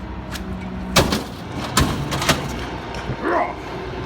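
A heavy metal soda vending machine crashing onto the ground as it is dumped off a truck: one loud impact about a second in, then two more crashes close together, over a steady idling truck engine.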